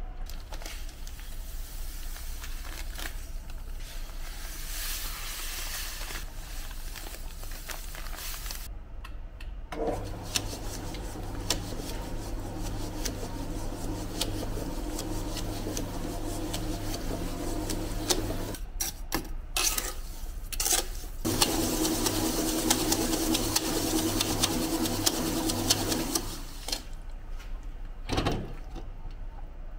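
Planetary mortar mixer running, its flat beater churning thick geopolymer mortar in a steel bowl with a steady motor hum. It starts about a third of the way in, stops for a couple of seconds, runs again, and stops shortly before the end.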